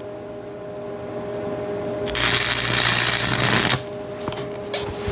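Electric welder arc crackling through a short weld of about a second and a half, starting about two seconds in, over the welder's steady hum. A few light clicks follow near the end.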